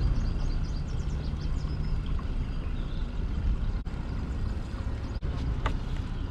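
An engine running steadily with a low rumble, with birds chirping over it in the first couple of seconds.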